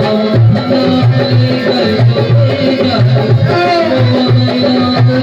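Instrumental interlude of a Hindi devotional bhajan: a steady drum beat, about two strokes a second, under a melody instrument.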